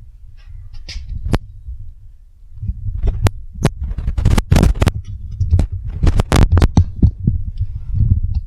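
Rubber mallet knocking on a scrap tapping block to drive vinyl planks together at the seams: two single knocks about a second in, then a run of quick knocks from about three seconds in, several a second. A low rumble runs underneath.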